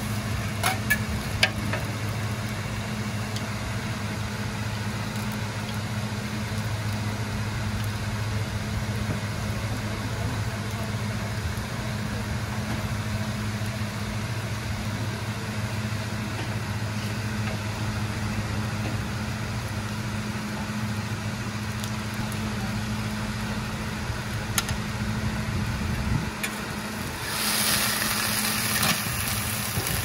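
Seafood and green onion pancake batter sizzling on a hot griddle over a steady low hum, with a few sharp clicks in the first two seconds. About 27 seconds in, the sizzle suddenly grows louder.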